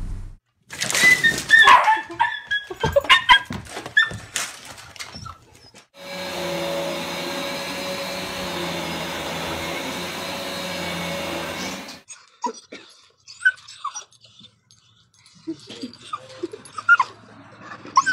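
A dog whining and yelping in short, bending cries; then an upright vacuum cleaner running steadily for about six seconds before cutting off; then softer dog whimpers.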